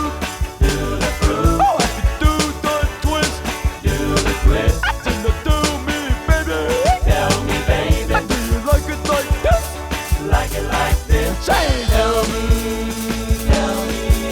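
Upbeat song playing: a singing voice over drums and bass with a steady beat.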